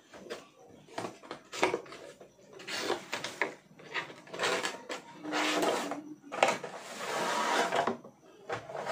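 Cardboard packaging being handled: a black inner box sliding out of its white cardboard sleeve, with a run of scraping rubs and a few light knocks.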